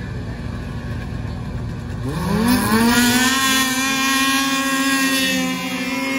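Racing snowmobiles launching from the start line about two seconds in: the engine pitch climbs fast, then holds high at full throttle, getting louder as the sleds come past.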